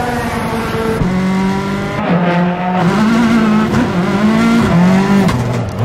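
A car engine revving hard, its pitch rising and falling again and again with the throttle, with tyre noise underneath.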